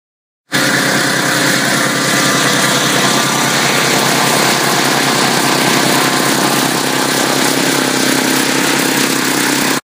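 5 hp Tecumseh overhead-valve engine of a homemade generator running steadily, belt-driving a car alternator. The sound starts suddenly about half a second in and stops suddenly near the end.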